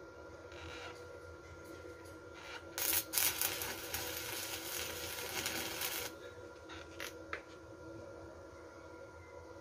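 Stick arc welding on steel pipe: the arc crackles and hisses for about three seconds, starting a few seconds in and cutting off sharply when the weld stops. Two short clicks follow soon after.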